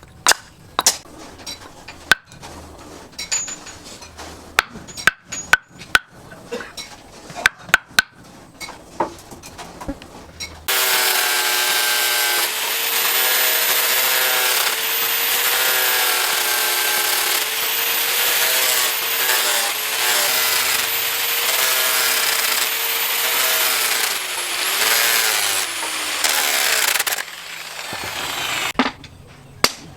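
For about ten seconds, scattered sharp taps and clicks of metalwork. Then a handheld electric power tool starts and runs steadily for about sixteen seconds with a high whine, its pitch dipping and wavering briefly before it stops.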